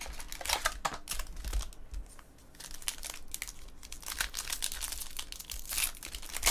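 Trading-card pack wrapper being torn open and crinkled by hand, a run of irregular crackles and rustles with a brief lull about two seconds in.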